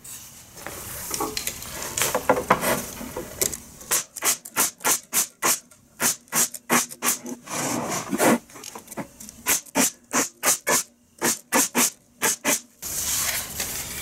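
Pneumatic stapler firing staples one after another, about two to three shots a second with a short break partway through, driving them through the top bars of wooden beehive frames into the side bars. Before the shots there is light handling of the wood.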